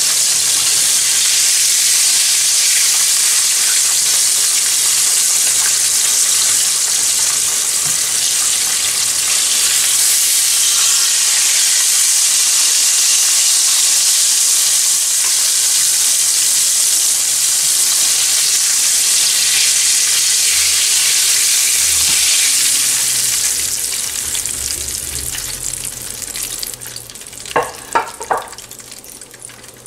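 Grey snapper steaks sizzling steadily in hot oil in a frying pan as the fried steaks are lifted out with tongs. The sizzle fades over the last several seconds once the fish is out, with a few light knocks near the end.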